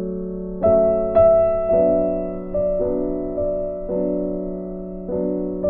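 Background piano music: a slow melody of single notes struck one after another and left to ring and fade.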